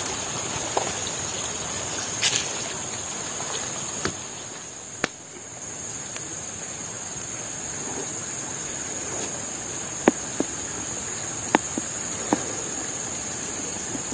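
Insects buzzing steadily in one high, even band over the continuous rush of a river, with a few scattered sharp clicks at irregular intervals.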